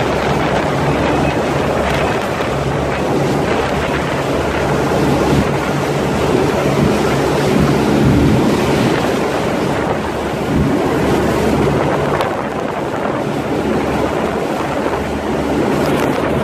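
Pilot boat's engines running steadily under way, with wind buffeting the microphone over the rushing hiss and splash of the boat's wake and spray.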